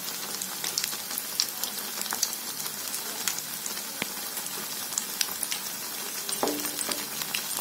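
Malpua batter deep-frying in hot desi ghee: a steady sizzle with many small crackles and pops.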